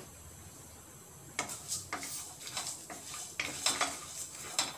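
Wooden spatula stirring and scraping whole spices (coriander seeds, sesame seeds, almonds, garam masala) around a frying pan as they are fried. It is a run of short scrapes and rattles starting about a second and a half in.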